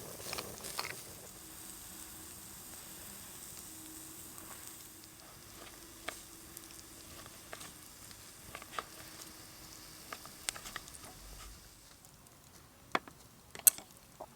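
Food sizzling and frying in a pan, with scattered light clicks and taps. The sizzling fades about twelve seconds in, and two sharper clicks follow near the end.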